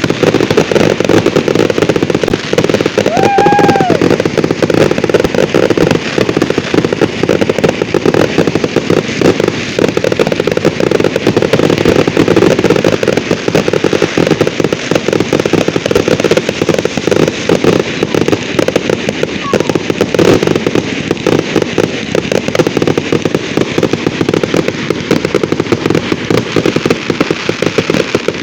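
Fireworks finale: a continuous, rapid barrage of crackling bangs without a break. A short arching whistle-like tone stands out about three seconds in.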